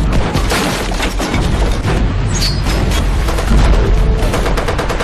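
Film battle sound: dense rapid gunfire with heavy booming explosions, mixed with film music.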